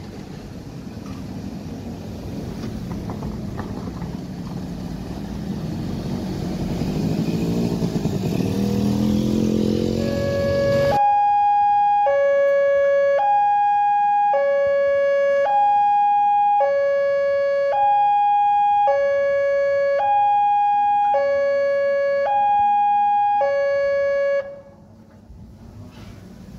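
Wind on the microphone and a motor vehicle engine rising in pitch. About ten seconds in, a level-crossing electronic warning alarm starts: a two-tone signal alternating between a low and a higher tone, each held about a second. It sounds while the barrier is lowered and the red lamp flashes, then stops abruptly near the end.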